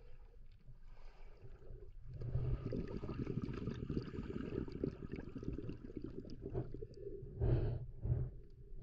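Muffled underwater sound picked up by a submerged camera while snorkeling: water rushing and swishing, growing louder about two seconds in, with two louder rushes near the end.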